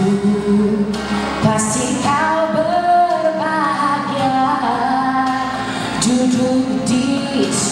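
A female solo singer sings a Malay song into a microphone, with melodic runs that glide up and down over recorded backing music.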